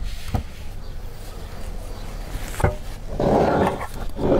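Cloth rubbing against a glass jar, with a few short knocks from handling the jar and a louder rough rubbing burst near the end.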